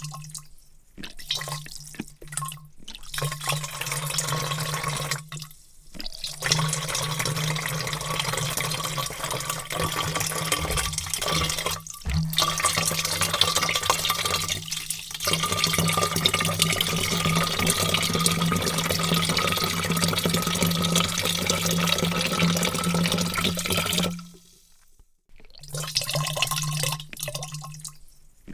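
A heavy stream of water pouring into a large vat, a steady rush with a low hum in it. The flow breaks off briefly several times in the first few seconds, then runs unbroken until a pause of about a second roughly three-quarters of the way through, and then resumes.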